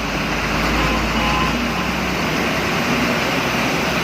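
Bus engine running with a low drone and steady road hiss, as heard while the bus is moving.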